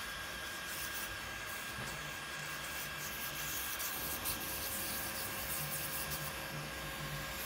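Electric pedicure machine's handpiece running steadily, a plastic-based sanding cap buffing the hard skin of a heel: a steady hum with a hiss, joined by a second faint tone about halfway.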